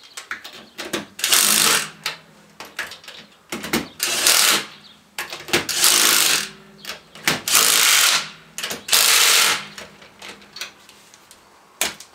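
Five short bursts of a rattling power wrench working wheel lug nuts, each about half a second to a second long, with sharp clicks and knocks of tools and wheel hardware between them.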